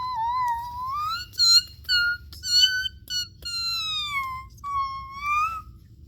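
A girl's high-pitched wordless voice, a string of sliding squeal-like notes, some rising and some falling.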